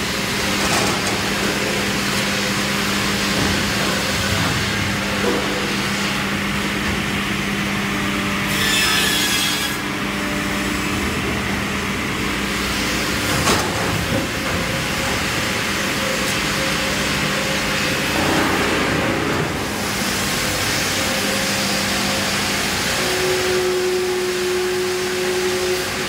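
Automated sawmill log-processing line running: a steady electric-motor hum under continuous saw and conveyor noise. A short rasping cut comes about nine seconds in, and a single sharp knock about halfway through.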